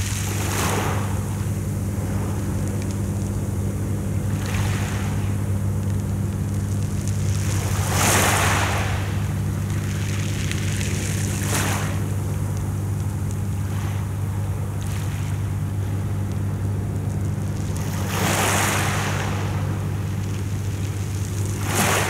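Small sea waves washing up onto a pebble beach, each one a hiss that swells and falls away, about six times, the strongest about eight seconds in. A steady low hum runs underneath.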